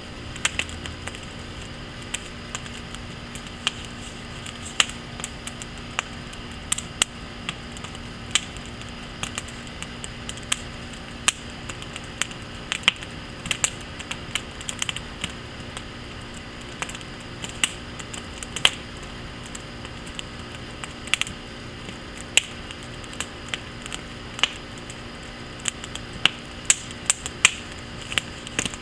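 Burning lumber in a wood fire crackling and popping: sharp, irregular snaps that throw up sparks, coming thicker near the end, over a steady low hiss.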